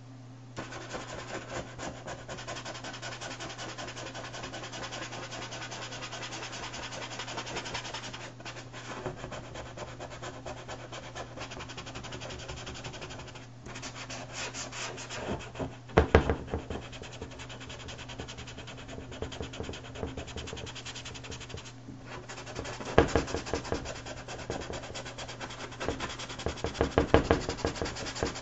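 Paintbrush bristles scrubbing over coloured pencil on paper in quick, scratchy back-and-forth strokes, blending the pencil layers. The strokes grow louder in short spells about halfway through and again in the last few seconds. A steady low hum runs underneath.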